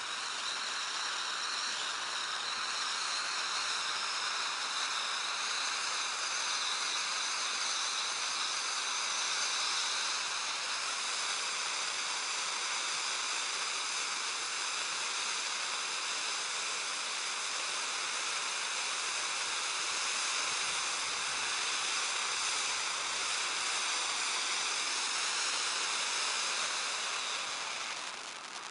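Titanium Volcano cone fountain firework hissing steadily as it sprays titanium sparks, dying away near the end.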